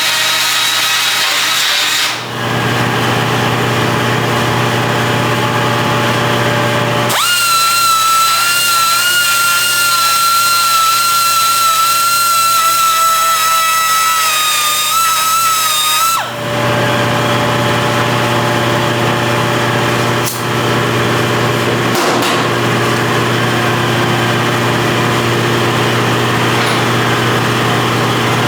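Power grinder running steadily on metal. About a quarter of the way in its note changes to a louder, high-pitched whine, and it drops back about halfway through, with brief dips in sound where the tool lets off.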